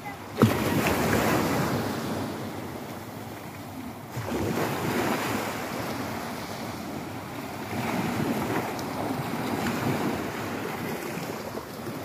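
Small sea waves breaking and washing up a sandy beach, surging about every four seconds, with wind buffeting the microphone. A short thump about half a second in.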